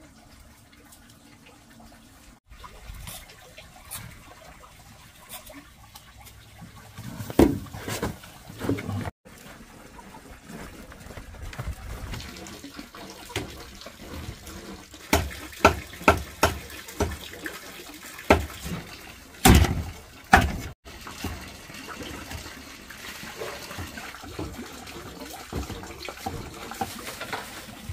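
Water running and splashing, with scattered sharp knocks and clatters that come in clusters near the middle.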